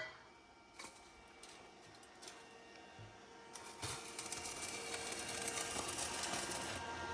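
A dense, fast crackling and sputtering starts about four seconds in and runs on steadily: an electric arc welder laying a bead on steel.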